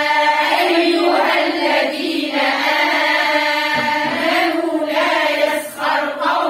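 A group of women reciting the Quran aloud in unison, chanting in long, drawn-out melodic notes in tajweed style.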